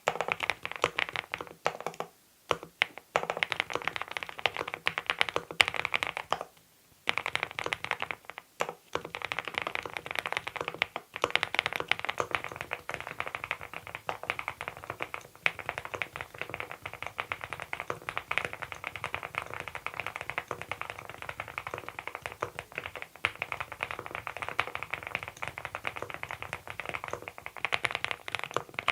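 Fast typing on a Monstar Gear Ninja 87 Pro ALU aluminium-case mechanical keyboard fitted with Adelie switches: a dense, steady run of keystrokes. It breaks off briefly about two, six and a half, and eight and a half seconds in.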